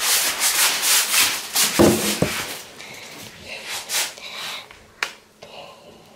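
Handling noise: fabric of a hoodie sleeve rubbing over the camera's microphone as the camera is carried, loudest in the first two seconds. It then quietens, with one sharp click about five seconds in as the camera is set on the kitchen counter.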